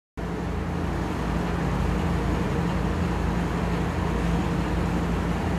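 Steady background room noise: a constant low hum with an even hiss, such as a running fan or air conditioner, cutting out for a split second at the very start.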